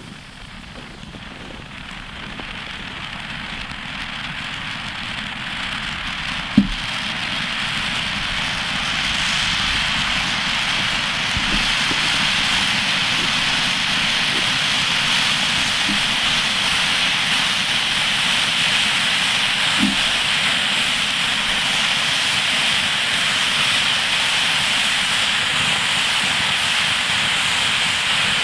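An 11-inch fountain firework spraying sparks with a steady hiss that builds over the first ten seconds or so, then holds. There is one sharp pop about six and a half seconds in, and a few softer pops later.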